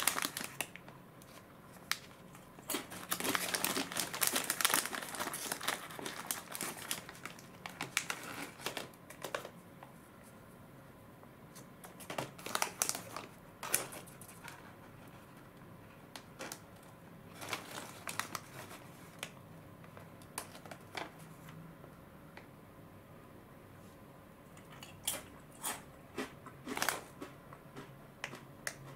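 Silver foil snack bag from a box of Ottotto crackers being opened and handled, crinkling in irregular bursts with short pauses between them.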